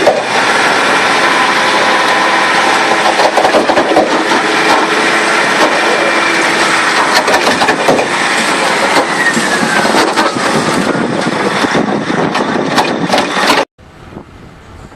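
A heavy vehicle engine running loudly, with many knocks and clatters over it. The sound cuts off abruptly near the end, leaving a much quieter background.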